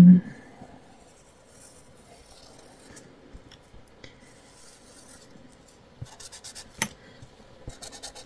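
Felt-tip marker tip scratching on paper as a wavy outline is drawn, ending in a run of quick short strokes as small cross-marks are added, with one sharp click a little before the end. A short hummed voice sounds at the very start.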